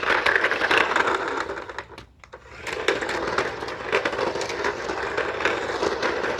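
Toy RC car's small electric motor and gears whirring. It stops briefly about two seconds in, then runs again.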